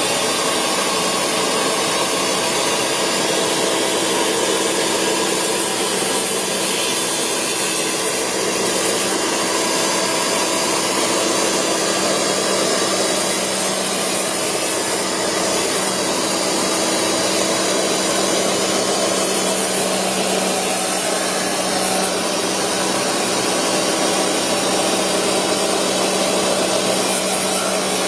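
Diamond saw blade running steadily and grinding into an iPhone's glass and body: a continuous hiss of the cut over a steady motor hum.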